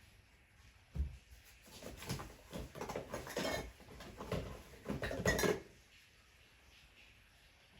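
Household objects being handled and set down: a low thump about a second in, then a run of knocks and clatters for about four seconds.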